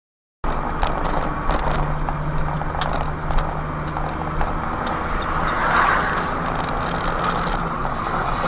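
Engine and road noise from a moving vehicle as picked up by a dashcam: a steady low hum under a rushing noise, with scattered light clicks. It cuts in abruptly about half a second in, after silence.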